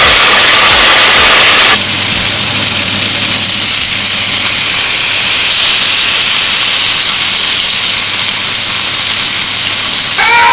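Loud sizzling of food frying in hot oil: potato chips in a wok, then smashed beef burger patties searing in a cast-iron skillet. The hiss changes abruptly about two seconds in and again about halfway through.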